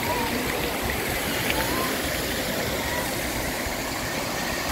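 Steady rush of fountain water jets spraying and splashing onto wet paving, with faint voices in the background.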